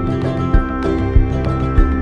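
Background music with a steady beat of about three strokes a second under sustained notes.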